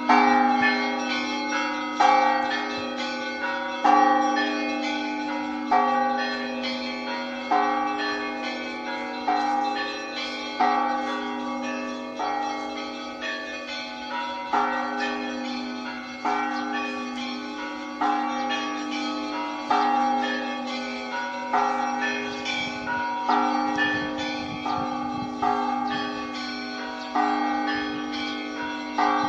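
Orthodox church bells ringing: a strong stroke about every two seconds, with lighter bells chiming in between and a steady low hum beneath.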